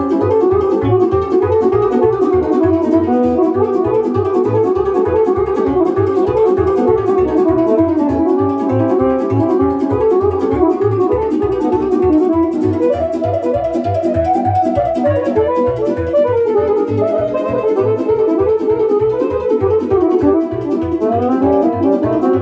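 A sârbă, a fast Romanian folk dance tune, played live on accordion and electronic keyboard over a steady, quick bass beat.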